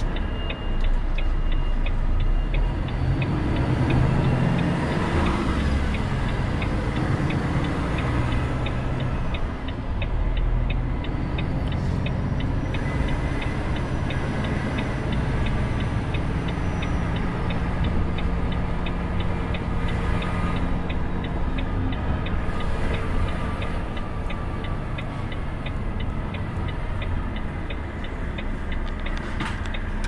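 Volvo FH500 truck's 13-litre six-cylinder diesel engine running as the truck pulls away and drives slowly, heard from inside the cab. A dashboard indicator ticks steadily and evenly over the engine.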